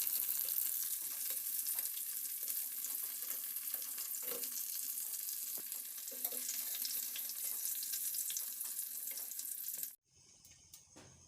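Batter-coated stuffed ash gourd slices frying in hot oil: a steady sizzle with small crackles. It cuts off abruptly about ten seconds in, leaving a much quieter background.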